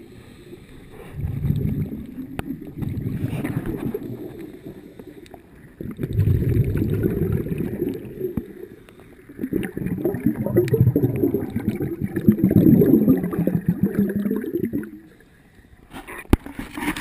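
Muffled water sloshing and rushing around a submerged camera, in uneven surges that swell and fade, with a few sharp knocks near the end.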